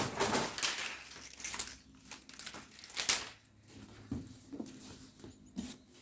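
Packaging being handled and pulled off a new washing machine during unboxing: irregular rustling and scraping with a few sharp knocks, loudest at the start and again about three seconds in.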